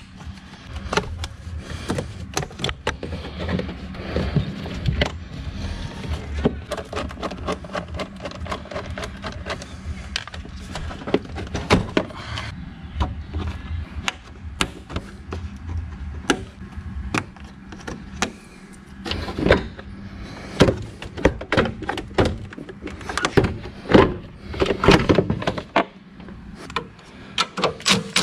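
Plastic engine-bay parts of a Ford Bronco Sport, the air box, intake and plastic brackets, being unclipped and lifted out by hand. Irregular clicks, knocks and rattles come throughout and grow denser and louder in the last third, over a steady low hum.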